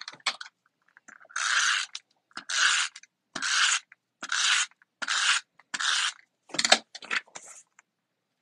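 Adhesive tape runner being pulled across the back of a sheet of card-stock paper in about seven even scraping strokes, with a few shorter strokes near the end.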